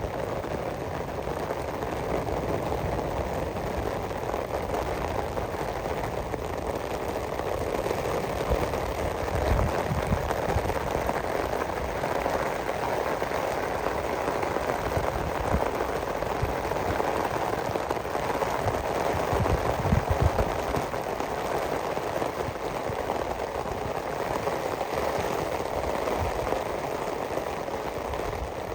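Steady rain falling, an even hiss, with a few low thumps about a third of the way in and again about two-thirds in.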